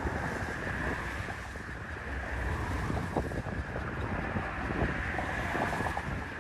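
Storm wind buffeting the microphone in a steady low rumble, over the rush of waves and surf.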